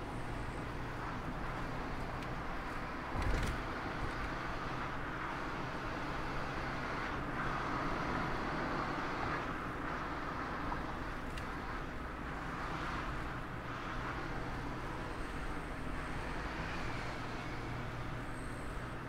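Mazda ND Roadster driving, heard from an onboard camera: steady low engine hum under tyre and wind noise, with one thump about three seconds in.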